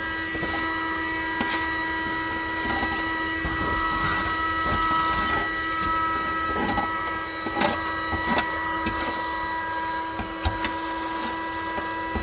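Vacuum cleaner running steadily with a constant motor whine, while debris being sucked up the nozzle makes irregular clicks and rattles.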